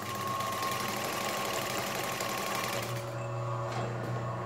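1950s Singer 31-15 industrial sewing machine stitching rapidly through two layers of cotton fabric, then stopping about three seconds in. Its industrial motor keeps humming steadily under the stitching and after it stops.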